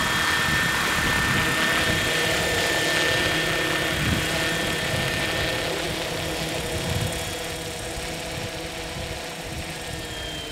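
Electric scale RC model MD500 helicopter's motor and rotors running as it touches down, with a high steady whine that fades out a few seconds in. The sound grows gradually quieter in the second half, its pitch sinking a little near the end as the rotors slow.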